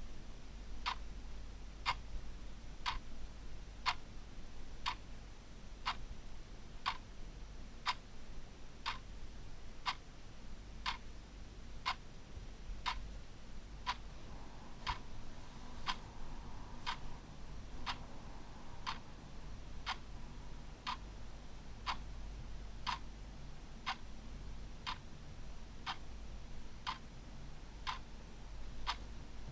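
Mechanical clock ticking steadily, one tick a second, over a faint steady low hum.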